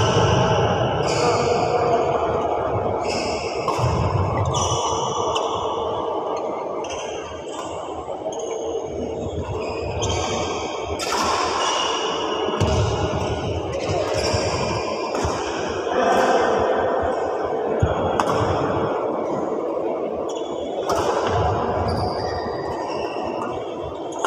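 Badminton rackets striking a shuttlecock during a rally, sharp hits coming about once a second, echoing in a large sports hall.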